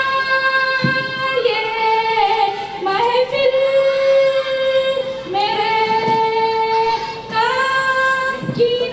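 A girl singing alone into a microphone, holding long notes that step up and down in pitch, with no instruments.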